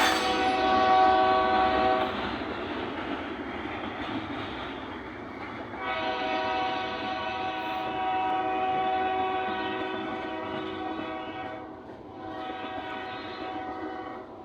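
Ferromex locomotive's air horn sounding a salute: a blast of about two seconds, then a long blast of about five seconds, then a shorter one near the end, over the steady noise of the passing train.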